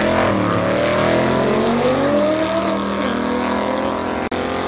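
Two drag cars, a Fiat 126p with a 6.3-litre V8 and a turbocharged VW Golf, accelerating hard down the quarter mile. Their engine pitch climbs and drops back at gear changes, and the sound eases off slightly as they pull away, with a brief cut about four seconds in.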